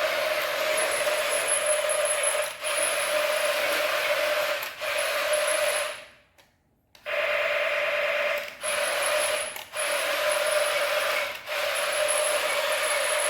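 A small motor whirring through gears, running steadily. It cuts off abruptly a few times and falls silent for nearly a second about halfway through.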